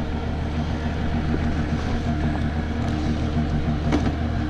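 Mercury 25 two-stroke petrol outboard idling steadily, warming up just after a cold start. A short click about four seconds in.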